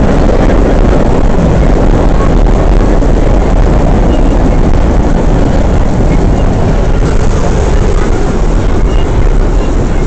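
Vintage R1/9 subway car in motion, heard from inside: a loud, steady rumble and rushing noise of the train running on the rails.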